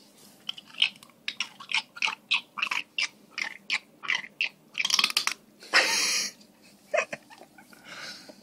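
Golden retriever chewing pistachios in the shell, cracking them in quick crunching bites about four or five a second. About six seconds in comes one louder noisy burst lasting about half a second, followed by a few more scattered crunches.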